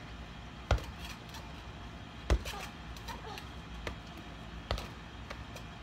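Sharp smacks of a tetherball being hit: two loud ones in the first half and a softer one later.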